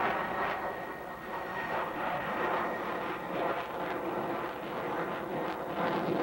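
Jet noise from a Sukhoi Su-37 fighter's twin turbofan engines as it manoeuvres overhead, a broad rushing sound. It eases about a second in, then wavers up and down.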